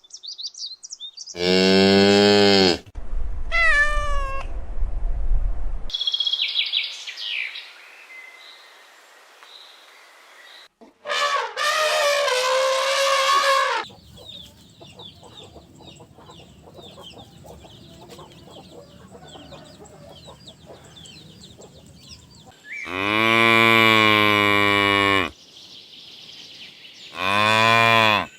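Cattle mooing several times, each moo long and loud. In between there are other, quieter animal calls.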